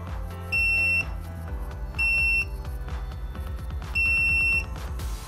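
MUSTOOL MT8206 multimeter's buzzer, set to continuity test, beeping three times, each a steady high beep about half a second long, over background music.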